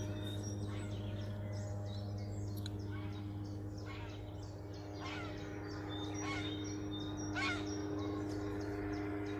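Crows cawing several times, with small birds chirping high above them and a steady low hum underneath.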